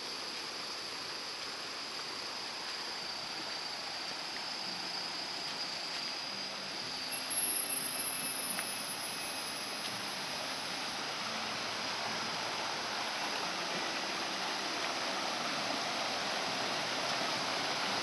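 Stream water running over rocks in small cascades, a steady rushing that grows gradually louder.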